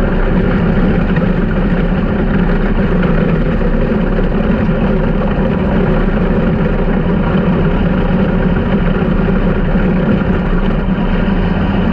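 Engine running steadily at an unchanging speed, loud and even throughout.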